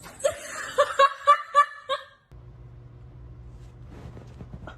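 A person laughing in about six quick, high-pitched bursts over the first two seconds, followed by a steady low hum.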